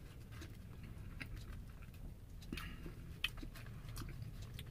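Small clicks and crinkles of fingers rummaging in a fast-food carton of curly fries, with one sharper click about three seconds in, over a low steady rumble.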